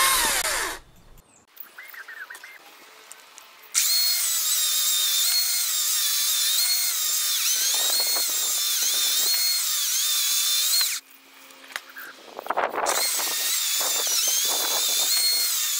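Makita DUC353 36V cordless chainsaw running in bursts as it cuts discs off a log: a high electric whine that stops about a second in, starts again about four seconds in, and stops and restarts again near the end. The pitch dips several times as the chain bites into the wood and the motor slows under load.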